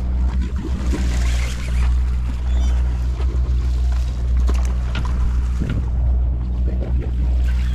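A sportfishing boat's engine running steadily with a low, even hum, under the splash and wash of water along the hull, with a few short knocks and splashes.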